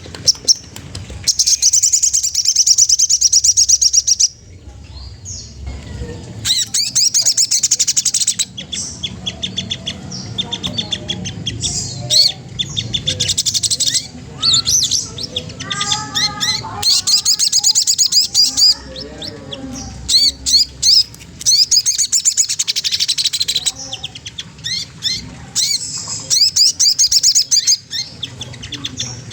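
Sogon trotol songbird singing: repeated bouts of very rapid, high chattering trills, each a few seconds long with short pauses between them, and a few slower, lower notes in the middle. This is the bird's challenge song, played as a lure to set other birds singing.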